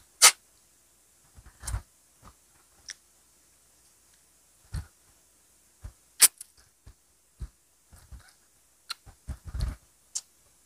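Close-miked eating: irregular wet mouth clicks, lip smacks and bites as grilled street food is pulled off bamboo skewers with the teeth. Two sharp snaps stand out, one about a quarter second in and one around six seconds in.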